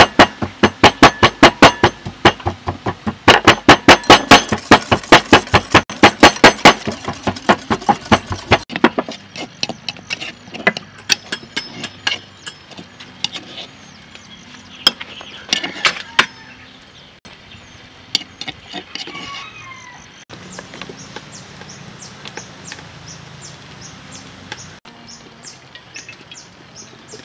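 Rapid, evenly spaced strikes of a kitchen utensil during food preparation, about five a second for the first eight or nine seconds. After that come sparser knocks and clinks, and then fainter regular ticks.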